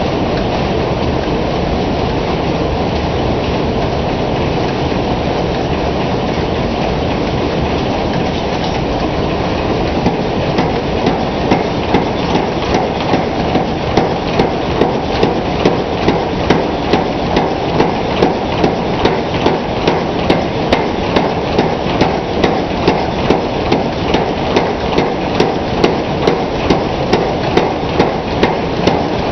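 100-pound Hackney mechanical power hammer pounding hot iron bar stock, drawing out a taper. For the first ten seconds it runs with a dense, rapid clatter; after that it strikes evenly spaced sharp blows about twice a second.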